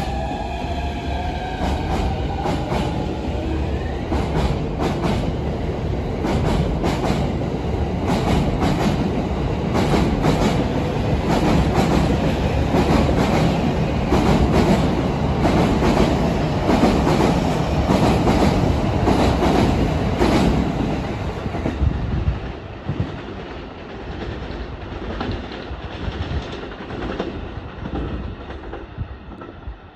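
Tokaido Line E231-1000 and E233-3000 series electric commuter train pulling away, its wheels clattering heavily over rail joints on a steel railway bridge as it gathers speed. A rising electric motor whine is heard in the first few seconds. The clatter drops off about three-quarters of the way through and fades as the train leaves.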